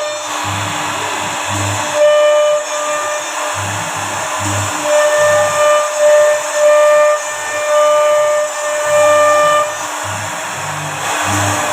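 CNC router cutting wood: a steady whine with a hiss of the bit in the wood. A higher tone cuts in and out every second or two, and short low hums come and go as the machine moves.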